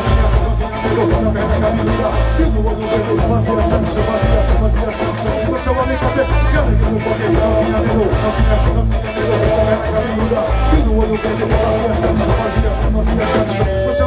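Live manguebeat band playing loud amplified music: electric guitars, drum kit and congas over a heavy, regularly pulsing bass beat, heard from within the crowd in front of the stage.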